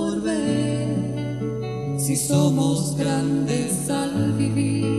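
Live duo music: an acoustic guitar playing under a sung melody.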